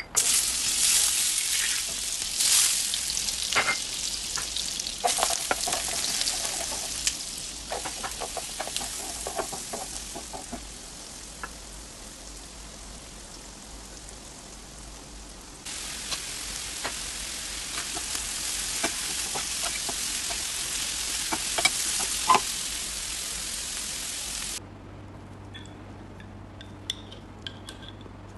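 Chopped onion and green pepper frying in butter in a nonstick frying pan, sizzling loudly with the clicks and scrapes of stirring. The sizzle fades out, comes back suddenly about halfway through and cuts off near the end, after which there are faint clinks of dishes.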